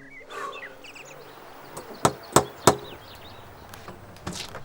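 Three quick knocks on a door, about a third of a second apart, with birds chirping in the background.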